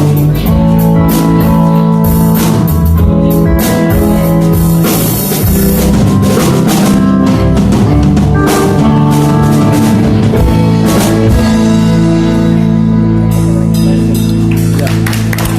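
Live band playing an instrumental passage without vocals: drum kit with frequent cymbal and drum strikes over guitar and bass, settling into long held notes with fewer drum hits later on.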